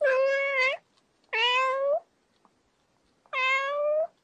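Domestic cat meowing three times, each meow under a second long and ending on a slight rise in pitch.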